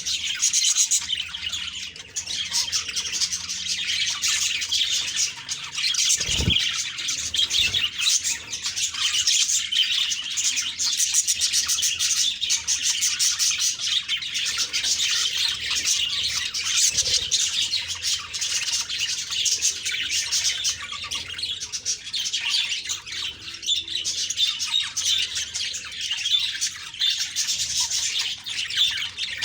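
Budgerigars chirping and chattering continuously in quick, high twittering notes with the odd squawk. A brief low thump comes about six seconds in.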